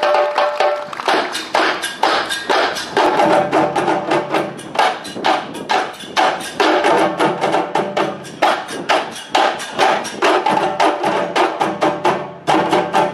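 Group of djembe hand drums played together in a quick, even rhythm of sharp hand strikes, with a short break about twelve seconds in before the drumming resumes.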